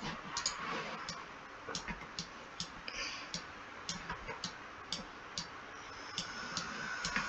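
Computer mouse buttons clicking: a run of sharp, irregularly spaced clicks, about two to three a second, as objects are selected and adjusted in the 3D modelling software.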